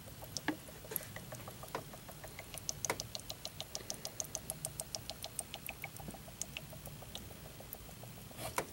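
Faint irregular clicking and ticking, with a fast run of ticks in the middle, as brake fluid bubbles and drips through the line while a new brake caliper is bled of air.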